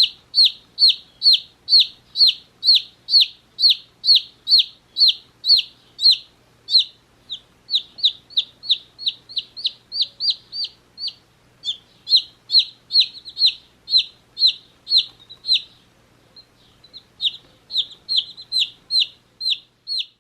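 One-day-old chicks peeping: a continuous run of loud, high, downward-sliding peeps, about three a second, with a brief pause about sixteen seconds in.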